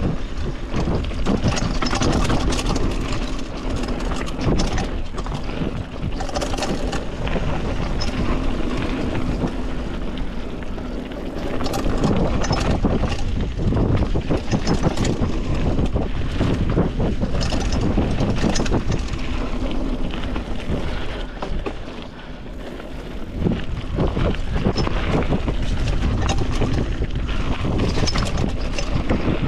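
Mountain bike riding fast down a dirt berm trail: wind buffeting the microphone over the rush of tyres on dirt and a steady clatter of rattles from the bike over bumps, easing briefly about two-thirds of the way through.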